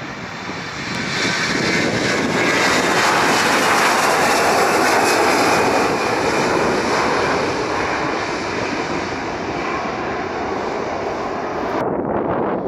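Airbus A321 twin-jet airliner at takeoff power, its jet noise swelling as it lifts off and climbs away, loudest a few seconds in and then slowly easing. Near the end it cuts abruptly to a duller jet engine sound.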